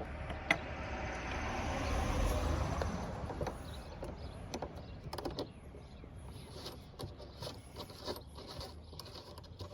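Small metal clicks and rattles of RV compartment lock hardware being handled as the old cam lock comes out, with a sharp click about half a second in. A rumbling whoosh swells and fades over the first few seconds.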